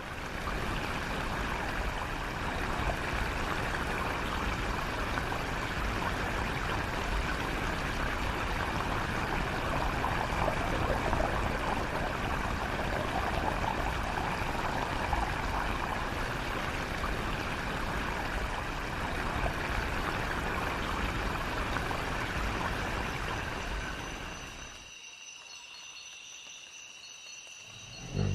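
Steady rushing sound like running water, which fades away about 25 seconds in, leaving a quieter background with faint steady high-pitched tones.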